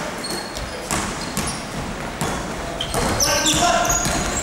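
Basketball bouncing on an indoor court during play, with sharp short thumps scattered through and players' calls about three seconds in.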